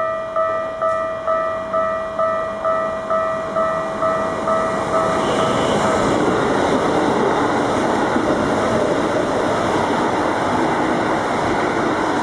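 A Japanese level-crossing warning bell dings about twice a second and stops about six seconds in. Meanwhile a Keikyu New 1000 series eight-car limited express passes with rising, then steady, wheel and rail noise.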